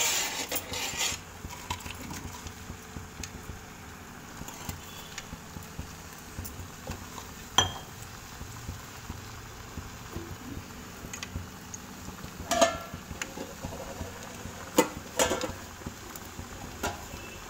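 Scattered sharp clinks of metal utensils against a steel kadhai over a low steady background, loudest about halfway through and twice near the end, as chopped nuts are added to carrot halwa as a garnish.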